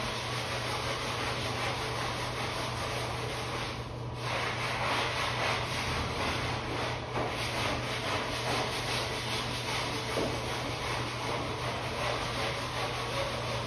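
A grout scrub brush scrubbing a soapy mosaic tile shower floor, a steady back-and-forth scratching with a brief pause about four seconds in.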